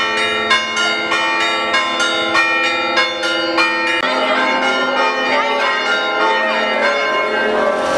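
Greek Orthodox church bells ringing a rapid festive peal for the Easter Resurrection, about three strokes a second, each stroke ringing on over the next. About halfway through, the strokes become less distinct and blend with other sounds.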